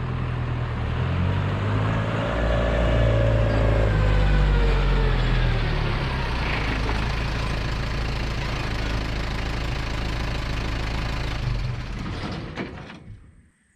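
A motor vehicle's engine running steadily, its note shifting a little, then dying away about a second before the end.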